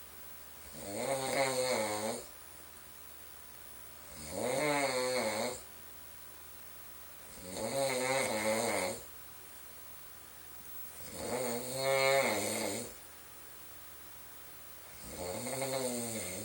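A man snoring in a steady rhythm: five long, pitched snores about every three and a half seconds, each rising then falling in pitch, with quiet breaths between.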